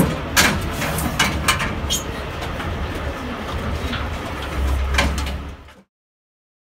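Pigs inside a livestock transport truck making low grunts, with knocks and clatter against the metal slats and floor over a steady low rumble. The sound cuts out suddenly about six seconds in.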